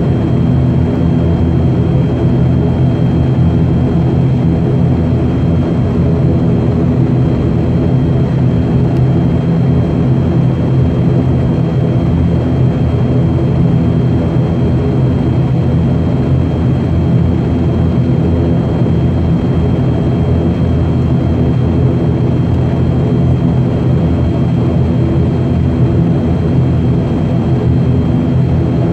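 ATR 72-600's Pratt & Whitney PW127M turboprop engines and six-blade propellers running steadily, heard from inside the cabin beside the propeller: a constant deep drone with a faint high steady whine over it.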